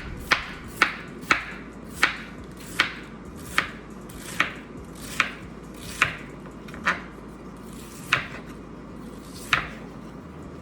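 Kitchen knife chopping red cabbage on a cutting board: about a dozen sharp chops, spaced out more toward the end.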